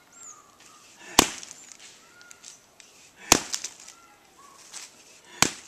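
A long wooden beater striking the side of a fresh mud wall three times, about two seconds apart, to pack and shape the mud. Each blow is a sharp impact followed by a few small ticks, with faint birdsong between the strikes.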